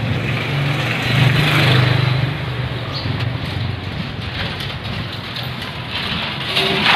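Street traffic: a motor vehicle's engine passing close by, swelling about a second in and then easing off.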